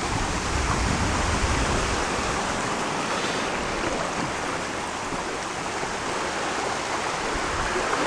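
Steady rushing of a small waterfall and creek, with wind rumbling on the microphone for about the first second.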